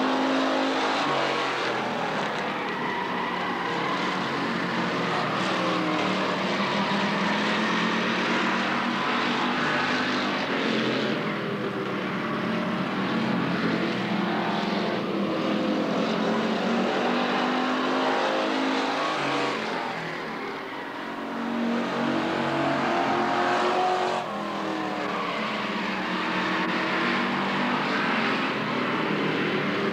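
Street stock race cars' engines running around the oval, their pitch rising and falling as cars pass. The engine noise fades for a few seconds about two-thirds of the way through, then comes back suddenly.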